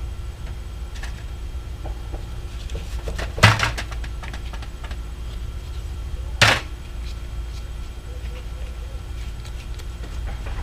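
Small carburetor parts being handled and set down on a workbench: light clicks and taps, with two sharp knocks about three seconds apart, over a steady low hum.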